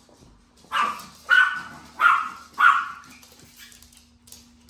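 A small fluffy dog barking four times in quick succession, about two barks a second.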